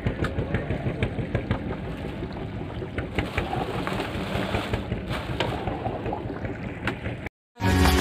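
Boat engine running with a rapid, steady chugging under a haze of water and wind noise. It cuts off suddenly near the end, and music starts.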